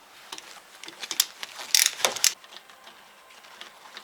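A wrench working the drain plug on a Lada Niva front-axle differential housing: a string of metallic clicks and clanks, the loudest cluster about two seconds in.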